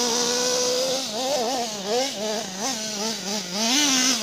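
Small engine of a Kyosho radio-controlled monster truck running, held steady for a moment and then revving up and down in quick throttle blips as the truck is driven.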